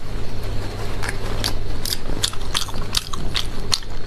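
Close-miked wet biting and chewing of soft, sauce-coated braised sheep's stomach stuffed with brain: a run of sharp, wet mouth smacks and squelches that come thicker from about a second and a half in, over a steady low hum.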